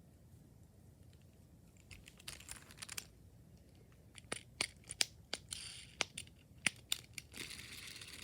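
Sharp, irregular plastic clicks from a dimple fidget spinner being pressed and handled: a few clicks, then a quicker run of them. Near the end a steady hiss takes over.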